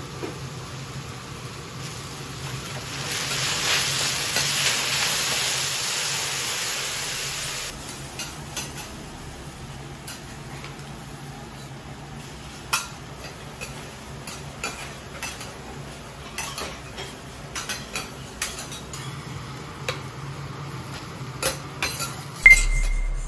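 Noodles sizzling on a steel teppan griddle as oil is poured over them, a loud hiss for several seconds that then dies down. After that, metal spatulas clink, tap and scrape on the griddle as ingredients are piled onto the noodles and the okonomiyaki are flipped, with a loud clatter near the end.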